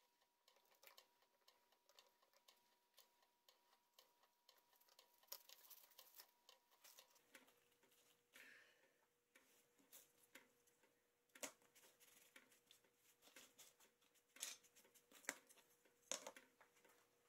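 Near silence with faint, scattered taps and rustling: hands wiping glue from glued-up wooden dial segments with a cloth rag and shifting the paper beneath them.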